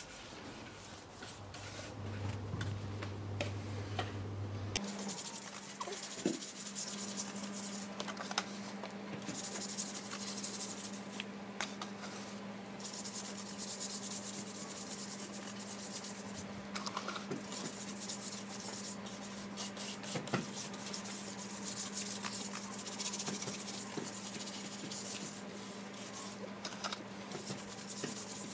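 Small stiff brush scrubbing a wheel rim coated in a baking soda and lemon juice paste: continuous scratchy rubbing of bristles on metal, with short breaks as the brush is re-dipped.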